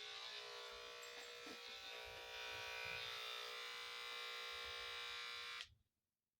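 Electric dog grooming clippers buzzing steadily, then switched off abruptly near the end.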